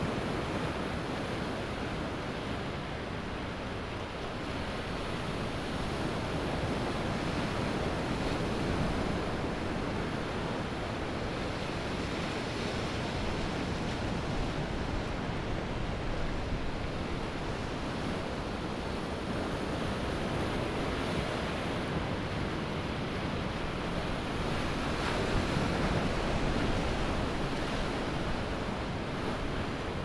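Ocean surf breaking and washing up a sandy beach: a continuous rushing wash that swells and ebbs as each wave comes in, loudest about 25 seconds in.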